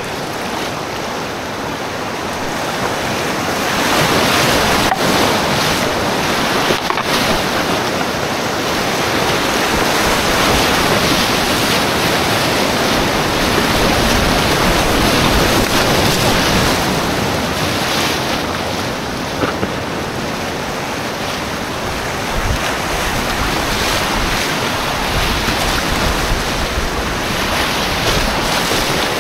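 Whitewater rapids rushing around an inflatable kayak as it runs down a steep, rocky river, with water splashing against the boat. The rushing grows louder about four seconds in, as the boat enters rougher water.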